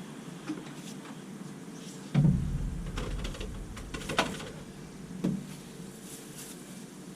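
A heavy thump about two seconds in, then a few lighter knocks and clicks over a steady low hum.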